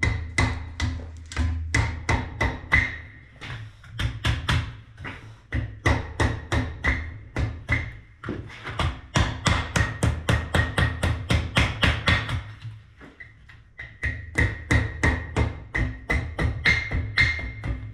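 Blacksmith's hammer striking hot iron on an anvil: a steady run of blows, about two to three a second, each with a ringing tone. The blows come faster in the middle, ease off briefly about thirteen seconds in, then pick up again.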